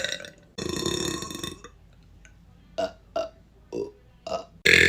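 A person burping loudly over and over: a long burp in the first second and a half, a few short burps about three to four seconds in, and another loud burp starting near the end, the clips cut sharply one against the next.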